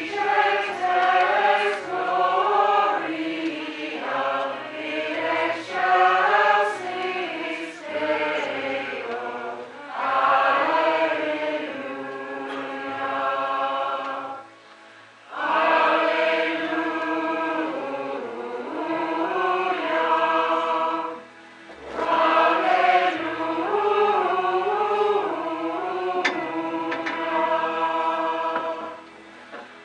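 Mixed choir of women's and men's voices singing together in long phrases, with short breaks about halfway through, again about two-thirds in, and just before the end.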